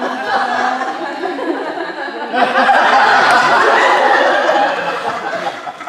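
Audience laughing, the laughter swelling louder about two and a half seconds in and dying down near the end.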